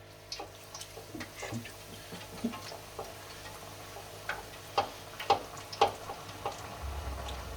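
Battered kingfish deep frying in hot oil, crackling with irregular sharp pops. A low bubbling rumble comes in near the end.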